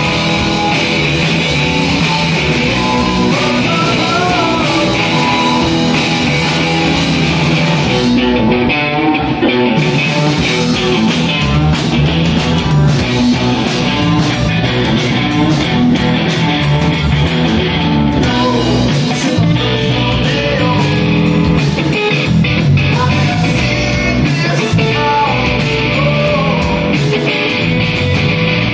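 Live rock band playing loud: electric guitars over a drum kit, with cymbal and drum hits more prominent from about ten seconds in.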